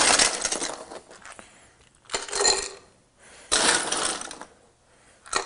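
Ice cubes clattering and clinking as they are scooped up and dropped into a rocks glass, in a few separate bursts.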